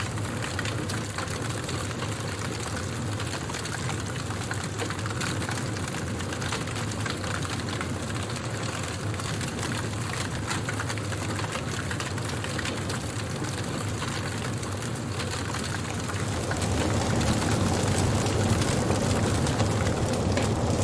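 Wood fire crackling, with many small pops over a steady low rush of burning; it grows a little louder about three-quarters of the way in.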